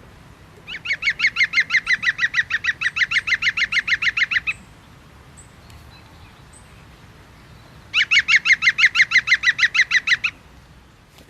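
A bird calling in two long runs of rapid, evenly repeated notes, about eight a second. The first run lasts nearly four seconds and the second, a few seconds later, about two.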